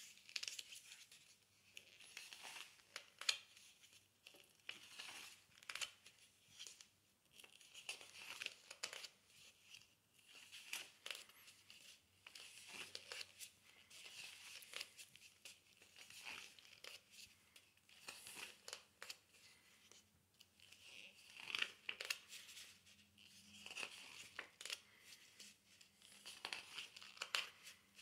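Pages of a large book being turned and handled: a run of short, quiet paper rustles and crinkles, coming one to a few each second.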